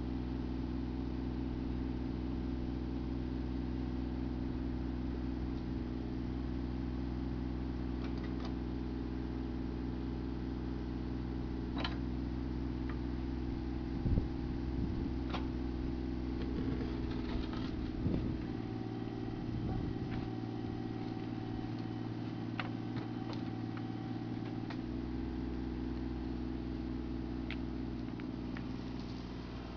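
E32 mini excavator's diesel engine running steadily as it digs a trench, its note shifting for a few seconds in the middle as the hydraulics work. Its bucket gives several sharp knocks and scrapes on stones and soil.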